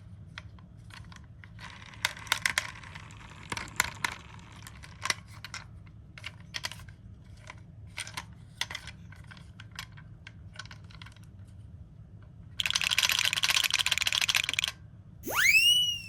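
Toy ambulance minicars clicking and clattering against each other as they are handled, in scattered sharp clicks. About thirteen seconds in comes a dense rattle for about two seconds, then near the end a short rising tone that dips slightly at its top.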